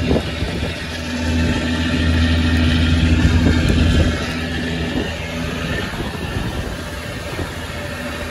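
Fishing trawler's inboard engine running steadily as a low drone under a rushing hiss of water; the drone drops a little about four seconds in.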